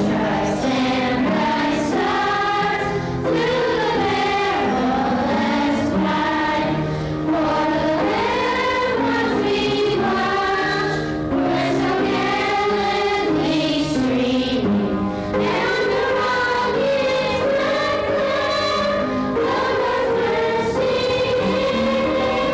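Children's choir singing into a microphone, many young voices together in a continuous song.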